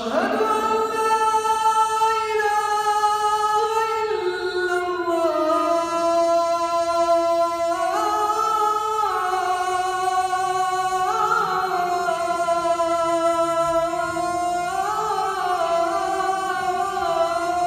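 Adhan, the Islamic call to prayer, chanted by a solo male muezzin into a handheld microphone. It is one long held phrase whose melody steps down and back up several times in ornamented turns.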